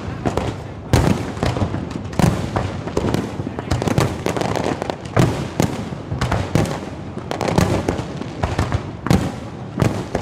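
Many fireworks going off at once: loud bangs at irregular intervals, roughly one a second, over a constant crackle of smaller reports.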